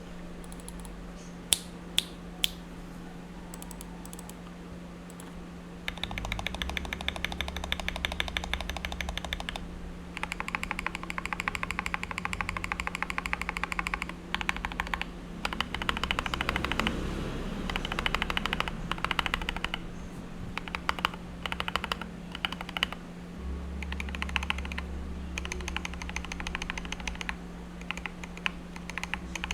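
Akko 3084B Plus mechanical keyboard with ASA-profile keycaps being typed on. Three single sharp clicks come near the start, then fast runs of keystrokes with short pauses. A steady low hum runs underneath.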